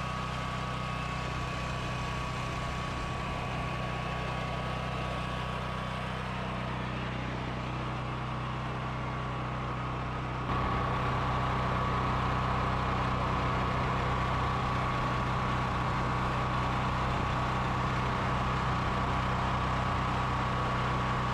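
Harbor Freight Predator 9000 generator's gasoline engine running steadily at constant speed, with a faint steady whine above the engine note. About halfway through, the sound cuts and resumes slightly louder.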